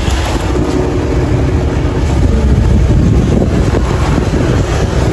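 A moving vehicle heard from on board: a steady low rumble of the engine and road, with wind buffeting the microphone.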